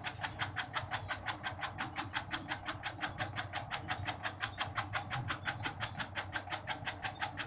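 Motorised tobacco-shredding machine running, its blade chopping tobacco in a fast, even rhythm of about six or seven sharp strokes a second over a low motor hum.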